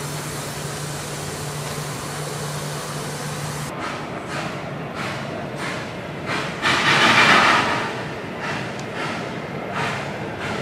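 Sugar-mill steam locomotive working: a steady low hum and hiss, then after a sudden change a regular beat of exhaust chuffs, with a louder rush about seven seconds in.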